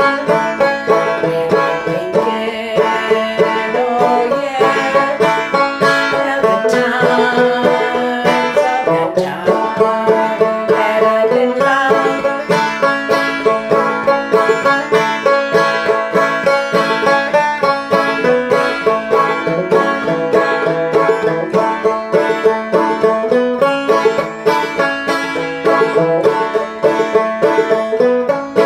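Five-string banjo played clawhammer style in standard G tuning: a continuous instrumental passage of brushed strums and plucked notes in an even, steady rhythm.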